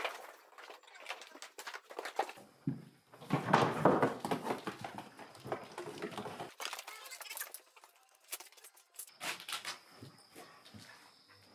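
Sheep being caught and wrestled by hand in a straw-bedded pen: hooves scuffling and trampling on straw and boards, with bumps and rustling. The loudest scuffle comes a few seconds in.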